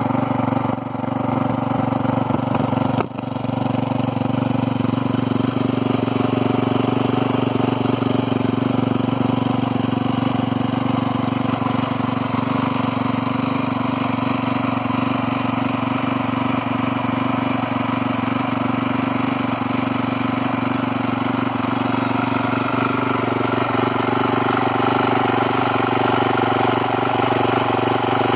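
Honda CRF450R's single-cylinder four-stroke engine idling steadily on the stand, with a brief drop in level about three seconds in.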